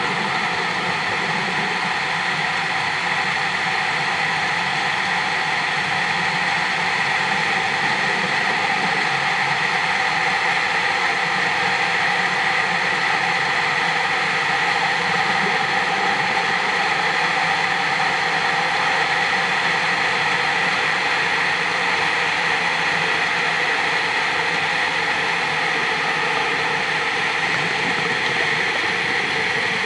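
Steady, unchanging hiss with a hum beneath it, recorded underwater.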